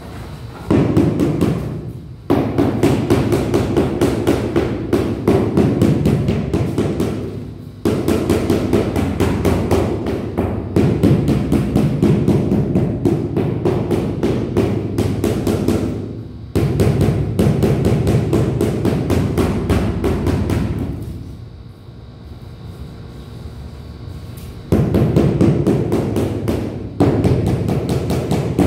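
Rubber mallet tapping large floor tiles over and over to bed them into the mortar, in long runs of quick knocks broken by short pauses and one longer pause about three-quarters of the way through.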